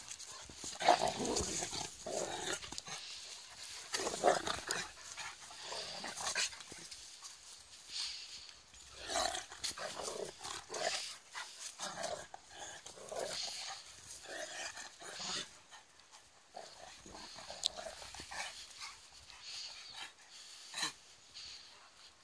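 A Caucasian shepherd and a komondor playing together: uneven bouts of dog play noise, growls and scuffles, loudest in the first two-thirds and quieter after about sixteen seconds.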